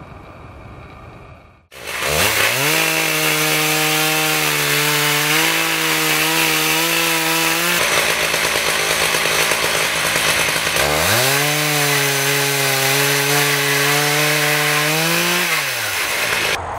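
Stihl chainsaw mounted in a chainsaw mill, sawing a slab from an oak stump. After a quieter opening, the engine revs up quickly about two seconds in and runs at steady high revs under load in the cut. The sound breaks off abruptly twice, revs up again, and near the end the revs fall away as the throttle is released.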